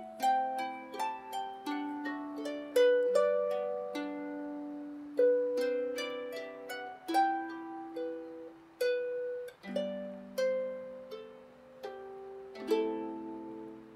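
Celtic harp playing a slow melody of plucked notes that ring on over one another; the last note dies away near the end.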